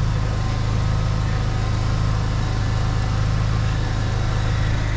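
Drain-jetting machine's engine running steadily in the background, a constant low drone.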